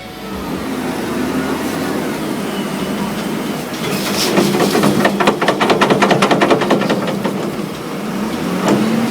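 Heavy machinery running steadily with a low engine hum, and a fast rattling run of clicks, about seven a second, from about four seconds in to near the end.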